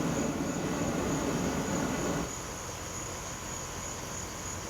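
Homemade gas venturi burner running with a rough, low roar from its ragged flame, a sign of poorly mixed gas and air; the roar stops abruptly about two seconds in as the gas is shut off. Crickets chirp steadily throughout.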